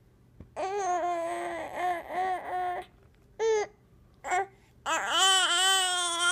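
Infant babbling: a long drawn-out stretch of vowel sounds broken into a few syllables, two short calls, then a long call that wavers up and down in pitch near the end.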